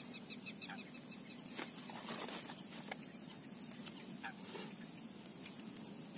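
Faint steady outdoor background hiss with a few short, faint animal calls, like distant fowl, and a couple of light clicks.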